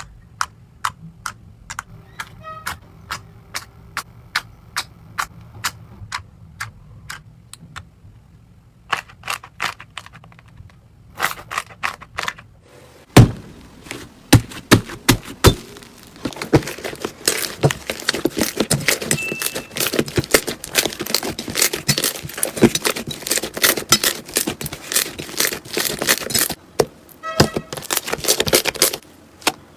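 Slime being pressed and poked: sharp pops about twice a second, then after a loud snap about halfway in, a dense run of crackling and popping that thins back to scattered pops near the end.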